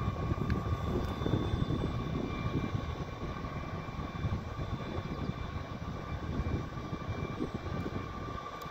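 Tyne and Wear Metrocar standing at the platform with its onboard equipment giving a steady high-pitched hum, over an uneven low rumble of wind on the microphone.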